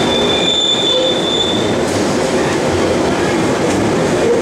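Bakerloo line 1972 Stock Underground train pulling into the platform and slowing, with a high squeal during the first two seconds and then the steady rumble of its wheels on the rails.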